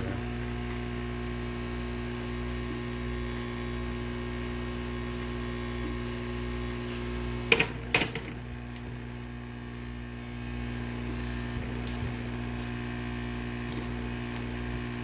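Heat gun running with a steady hum, heating the iPad's glass to soften its adhesive. Two sharp clicks come about halfway through, about half a second apart.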